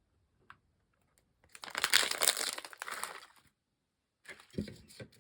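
Plastic packaging crinkling as it is handled, for about a second and a half, followed by a few shorter rustles and taps near the end.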